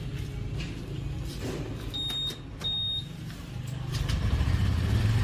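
Small motorcycle engine running, getting louder and revving up near the end. Two short high beeps come midway.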